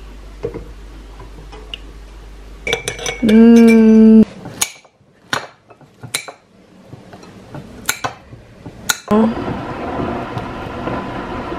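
Metal cutlery clinking and tapping against a ceramic mug and plate, in a series of sharp clicks, with a knife knocking on the plate as a banana is sliced. About three seconds in, a loud steady pitched tone lasts about a second.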